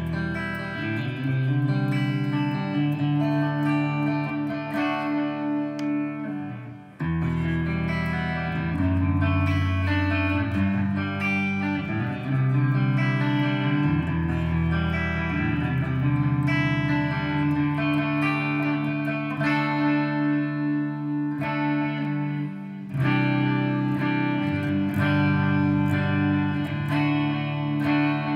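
Jackson SL4X Soloist electric guitar played plugged in: held chords and melodic lines, with a short break about seven seconds in.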